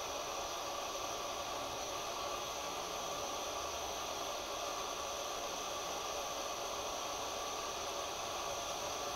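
Oxy-fuel bench torch burning with a steady hiss.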